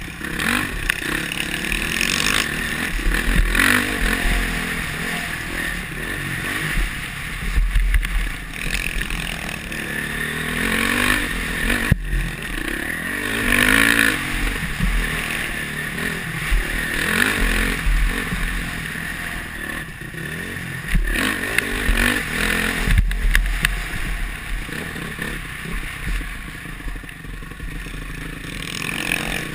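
Honda CRF450R's single-cylinder four-stroke engine running under hard riding, its revs rising and falling again and again through corners and straights, heard from a helmet camera.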